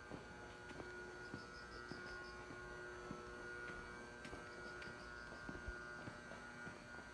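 Faint steady electrical hum. Twice a short trill of high chirps sounds over it, and a few light ticks come and go.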